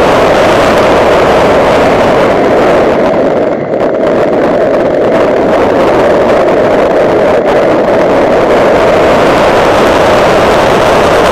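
2009 Honda Civic Si being driven hard: a loud, steady rush of engine and wind noise, with a brief dip in level about three and a half seconds in.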